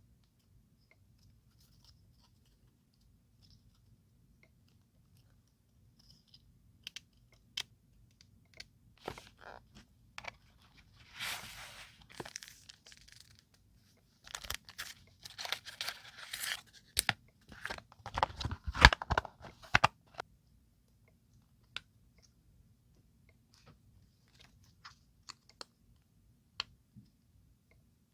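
Paper and stationery being handled at close range: rustling and tearing sounds with scattered small clicks and taps, busiest in the middle. A few sharp, low knocks around the middle are the loudest sounds.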